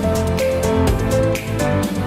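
Background music: a melodic tune over a steady beat with crisp hi-hat-like ticks.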